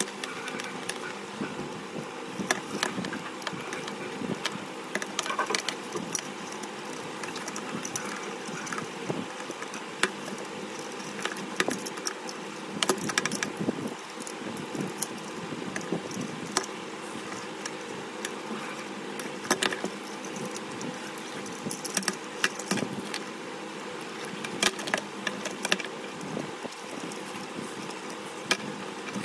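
Irregular small clicks and rustles of hands handling Sony MDR-ZX110A headphones and their ear cushions, over a steady mechanical hum of several fixed tones.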